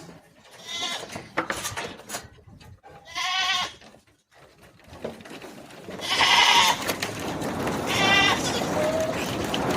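Barbari goats bleating: four wavering calls a few seconds apart. A steady background noise comes up and gets louder about six seconds in.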